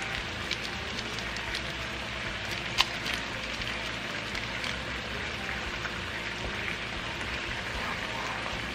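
Chopped onions frying in oil in a pan: a steady crackling sizzle with scattered small pops, and one sharper click about three seconds in.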